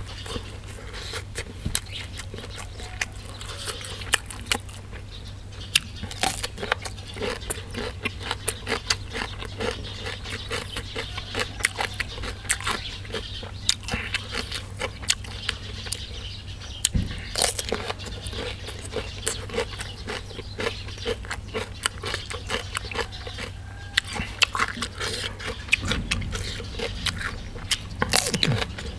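Close-up chewing and crunching of raw vegetables and pods, many small irregular wet clicks and crackles, over a steady low hum.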